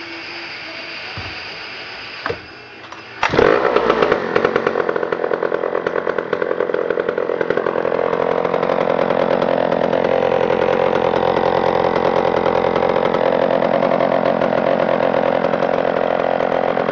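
1956 McCulloch D44 chainsaw, a 72 cc single-cylinder two-stroke, being pull-started. A sharp pull on the starter is heard, then the engine catches about three seconds in, runs unevenly for a moment and settles into steady running.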